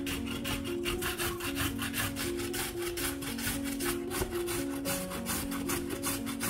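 Raw carrot being grated on a handheld metal julienne grater: quick, even rasping strokes, about six a second, that stop at the end.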